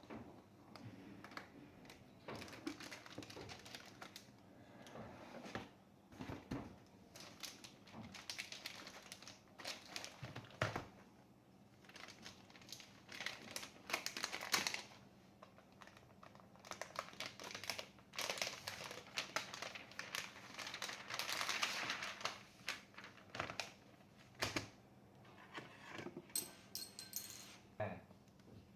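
Packaging being handled during an unboxing: irregular rustling and crinkling with scattered clicks and light knocks.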